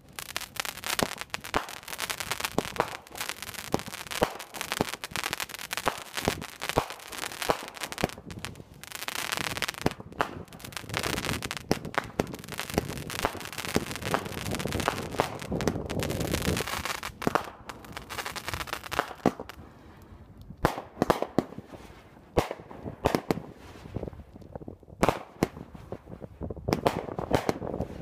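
Red Apple Fireworks' Americana Brothers consumer firework going off: a rapid, dense run of cracks and pops for the first two-thirds, then fewer, separate sharp bangs toward the end.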